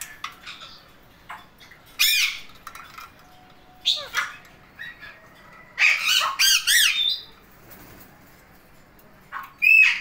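Male Alexandrine parakeets calling at intervals: single calls about two and four seconds in, a quick run of several arching high notes around six to seven seconds in, and one more call near the end.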